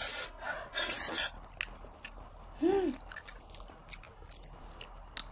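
Close-up eating of very ripe, soft sugar apple flesh: wet slurping and sucking bursts near the start and about a second in, small mouth clicks, and a short hummed 'mm' near the middle.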